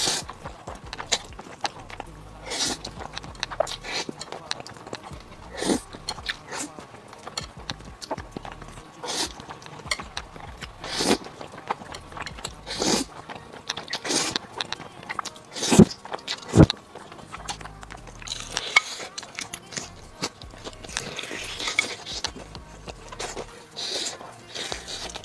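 Close-miked eating sounds: noodles slurped off chopsticks and chewed with wet mouth noises, a series of sharp sucks and smacks, the loudest about two-thirds of the way in. Near the end, meat is bitten and chewed off a chicken wing.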